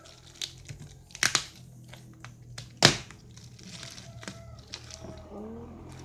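Clear plastic wrapping crinkling and crackling as fingers pick at it and pull it off plastic food containers, with a few sharp crackles, the loudest about three seconds in.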